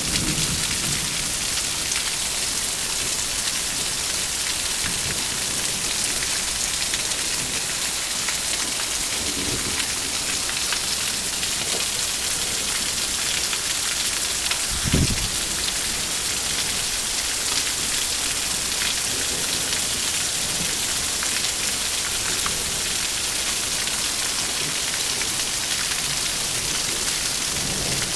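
Steady hiss of falling rain, with a brief low rumble about halfway through.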